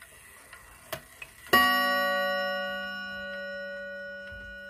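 Lindin 31-day wall clock ticking, then its hammer strikes the gong once about a second and a half in. The gong rings on as a steady chord of several tones, slowly fading.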